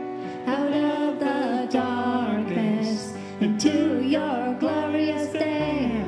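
A woman singing a slow worship song over sustained chords on a Yamaha electric keyboard. Her voice comes in about half a second in and stops near the end, while the keyboard chord rings on.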